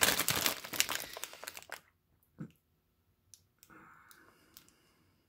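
Plastic pepperoni-slices bag crinkling as it is turned over in the hand. The crinkling is loud for the first two seconds and then dies down to a click and a few faint rustles.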